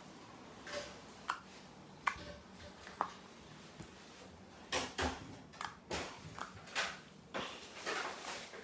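Homemade slime being poked and squeezed by hand: a few separate soft sticky pops about a second apart, then a quicker run of squelching crackles through the second half.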